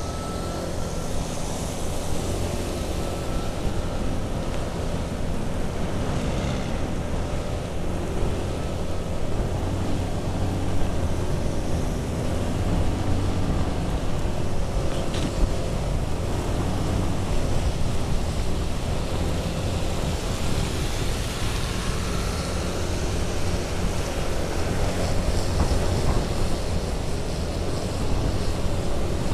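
Wind rushing over the microphone of a moving motorcycle, with the engine running steadily underneath and tyre noise from the wet road.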